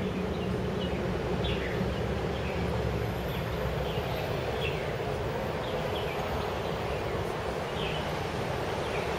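A motor scooter engine idles with a steady low hum, and birds chirp in short falling notes over it.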